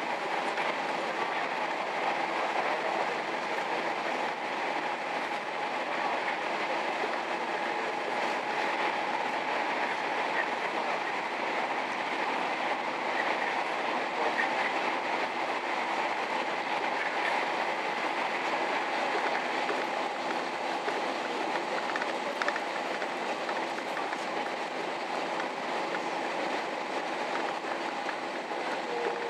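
Diesel railcar on the Kashima Rinkai Railway's Oarai-Kashima Line running steadily at speed, heard from inside the passenger cabin: a constant rumble of engine and wheels on rail.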